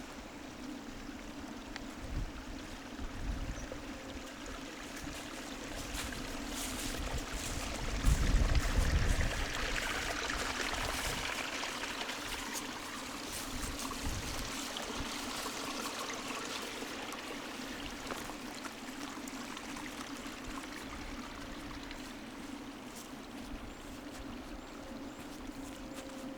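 Waterfall running with a steady rush of water, while gusts of wind buffet the microphone, the strongest about eight seconds in.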